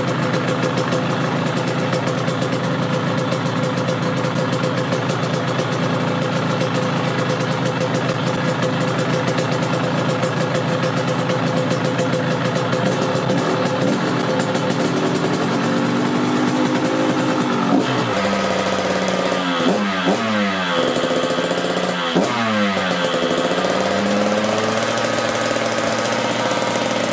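A 125 cc two-stroke dirt bike engine, freshly fitted with a new cylinder head, CDI and reed-valve block, running steadily as it warms up after starting. About two-thirds of the way in, the throttle is blipped a few times, and the revs rise and fall quickly before settling back.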